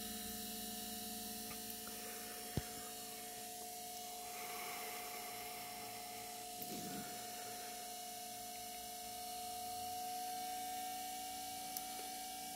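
Steady electrical hum with a whine held on one pitch from a homemade three-phase IGBT inverter and its AC motor test rig, running as the DC bus is raised toward 160 volts. The whine creeps slightly higher in the last few seconds. One sharp click comes about two and a half seconds in, and a fainter one near the end.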